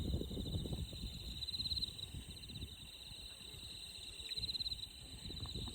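Insects trilling in a steady high pulsing chorus that swells louder twice, over the low rush of a flowing stream.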